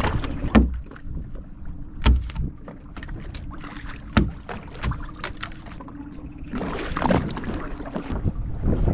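Small fibreglass fishing boat at sea: sharp knocks against the hull every second or two over a steady low rumble, with a burst of wind on the microphone about two-thirds of the way through.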